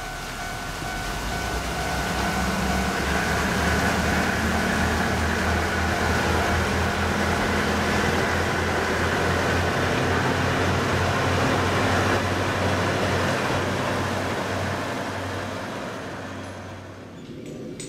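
Kominato Railway KiHa 200 diesel railcar running past on the line: a low throbbing diesel engine rumble with wheel-on-rail noise. It grows louder over the first few seconds and fades away near the end.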